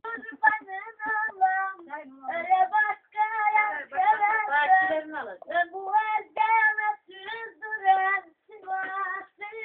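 A single high voice singing unaccompanied, in short phrases with held notes and brief breaks between them.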